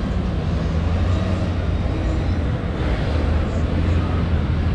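Steady low rumble of a San Martín line diesel-hauled passenger train, an even hum with noise over it and no change in level.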